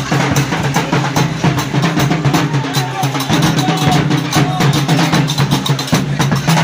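Street carnival band drumming fast, with dense clacking percussion beats over a steady low drone.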